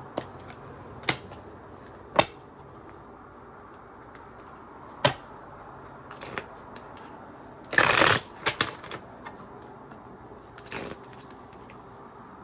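Tarot cards being handled: a few separate sharp card snaps and taps, then a short rush of shuffling about eight seconds in, followed by more light card clicks.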